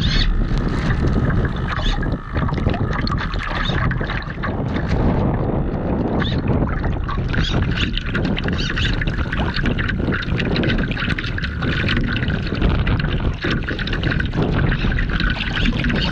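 Wind buffeting the microphone on the deck of an RC Laser model sailboat, with water splashing and slapping against the hull as it sails through choppy waves.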